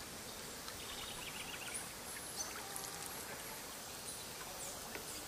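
Faint outdoor ambience: scattered short, high bird chirps and a quick trill about a second in, over a steady background hiss.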